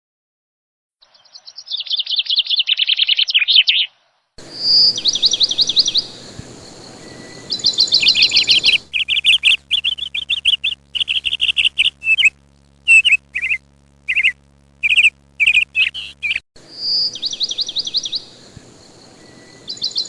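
Songbird chirping in quick trilled phrases, some repeated identically and cut off abruptly, as in a looped, edited recording.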